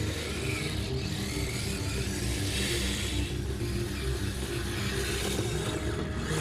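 Background music with a steady, low, engine-like drone beneath it.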